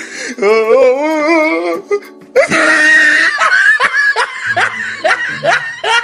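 Edited-in music with laughter sound effects: a wavering giggle, then from about two and a half seconds in a loud, rapid 'ha-ha-ha' laugh.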